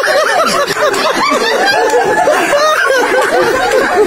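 Several people laughing and chattering at once, with overlapping giggles and voices that never drop out.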